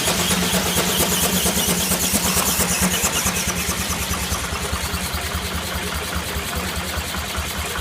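Steam engine running a sawmill, with a rapid, even beat under a steady hum. About halfway through the sound turns a little quieter and duller.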